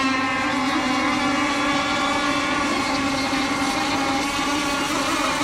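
Radio-controlled racing boats' small high-revving two-stroke engines running at full speed on the water, a steady high-pitched whine.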